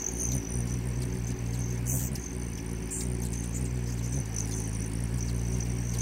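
Hummingbird wings humming as the birds hover and come and go at the feeders: a low steady buzz that shifts in pitch about four seconds in, with a thin high whine above it and a few short sharp chips.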